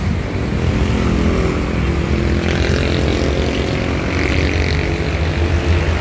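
A machine running steadily with a low, even drone.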